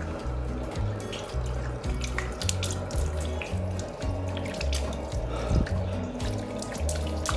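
Water running from a tap into a bathroom sink, with irregular splashing, heard under background music with a repeating bass line.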